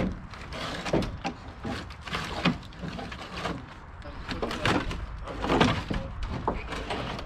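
Irregular knocks, thumps and scrapes as an old, rusty air-cooled Volkswagen engine is shoved and shifted on a plywood sheet in a pickup truck bed, the sharpest knocks about 1, 2.5, 4.5 and 5.5 seconds in.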